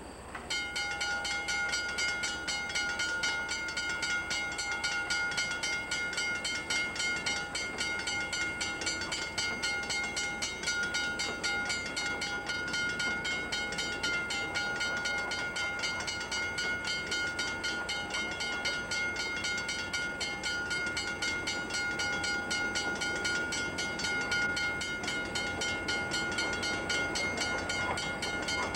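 Railroad crossing bell on a wig-wag crossing signal ringing in rapid, even strokes, starting about half a second in: the crossing warning activated by an approaching train.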